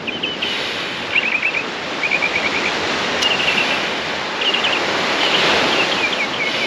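Small waves washing onto a sandy beach in a steady hiss, with a small bird repeating short, quick chirping trills over it and a single click about three seconds in.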